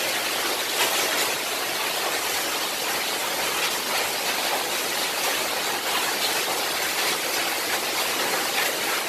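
Heavy rain mixed with hail pelting down, a dense steady hiss flecked with small ticks.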